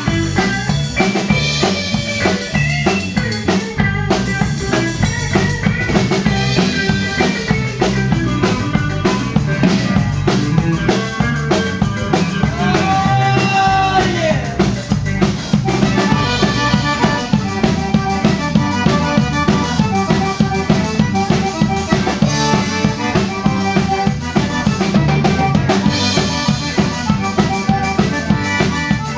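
Live Cajun band playing: a drum kit keeping a steady beat under electric guitar and a diatonic button accordion.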